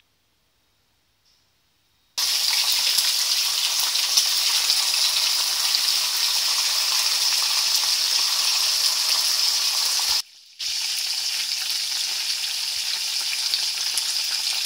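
Food frying in hot oil in a nonstick frying pan: a loud, steady sizzle that starts suddenly about two seconds in, breaks off briefly near ten seconds and resumes.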